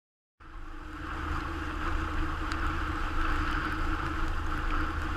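A sailing yacht motoring along: its engine running with a steady low hum, under the rush of water breaking along the hull. The sound starts abruptly just under half a second in.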